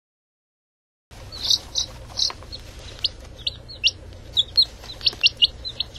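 Chick chirping: a quick, irregular run of short, high peeps that starts about a second in, over a faint low background noise. It is the end-of-time signal of a countdown timer.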